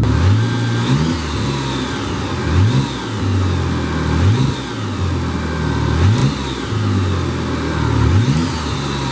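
Turbocharged car engine revved in about five short blips, its pitch climbing and dropping each time, with a high whistle rising and falling at every rev. The engine is being revved to test a newly fitted aftermarket blow-off valve.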